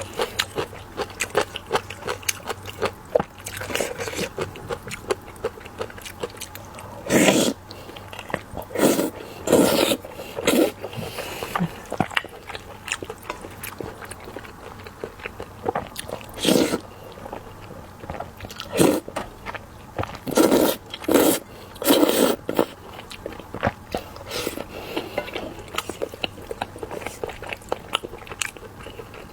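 Close-miked eating: steady small wet clicks of chewing, broken every second or few by louder bites.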